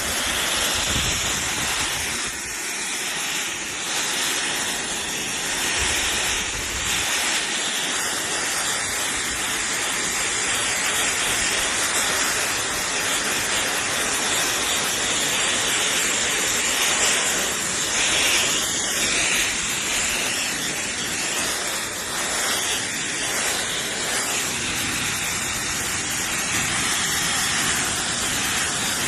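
High-velocity pet dryer running, a steady loud rush of blown air with a faint high whine.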